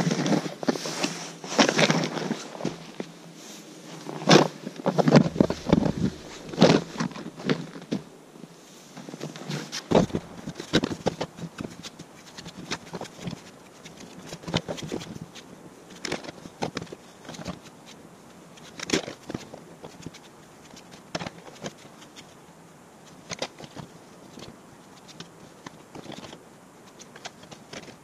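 Snow shovel scraping and pushing through fresh snow, with crunching footsteps in the snow. The strokes are loud and close for the first several seconds, then fainter and more spread out.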